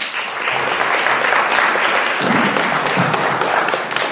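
Audience applauding, dense clapping that breaks out suddenly at the start and holds steady.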